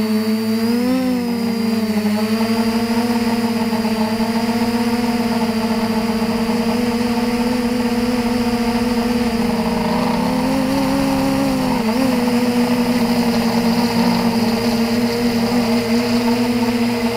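Quadcopter motors and propellers buzzing steadily in flight, with a brief upward swing in pitch about a second in and another pitch shift about two-thirds of the way through.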